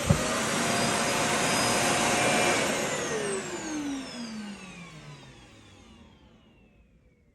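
Vacuum cleaner motor running with a steady whine, then winding down with falling pitch from about three seconds in and fading out near the end. A sharp click sounds just at the start.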